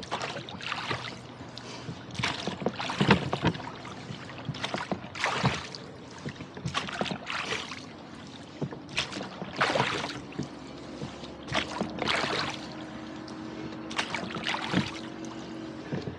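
Rowboat oars stroking through choppy lake water: a splash and swish of the blades about every two seconds.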